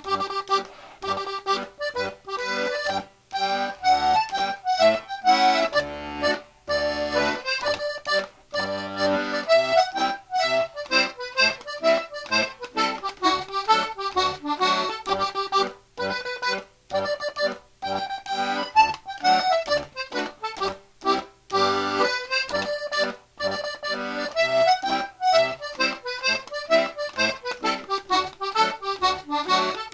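Accordion music: a quick melody of short notes over low bass notes, playing without a pause.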